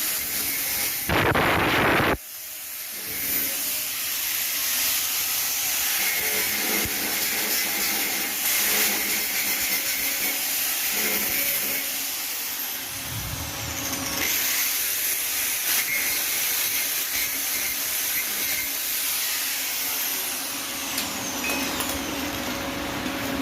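Arc welding on steel C-channel: a steady crackling hiss from the arc, with a louder burst about a second in.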